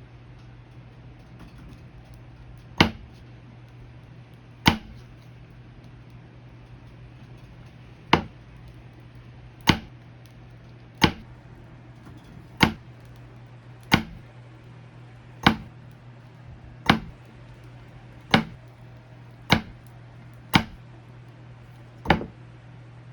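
Loaf of handmade soap being cut into bars: a sharp chop each time the blade goes through and hits the board, thirteen in all at roughly one every second and a half, over a low steady hum.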